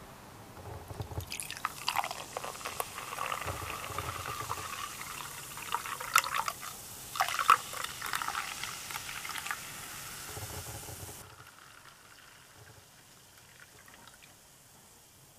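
Carbonated cola poured from a plastic bottle into a glass, splashing and fizzing as it fills. The pour stops about eleven seconds in, leaving the faint hiss of the bubbles settling.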